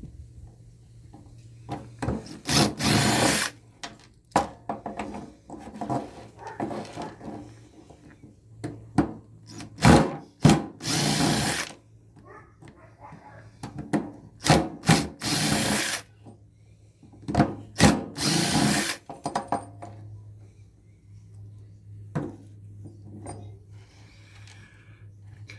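Cordless drill spinning in short bursts, about four runs of a second or so each, backing screws out of electrical connectors. Clinks and clatter of small metal parts fall between the runs.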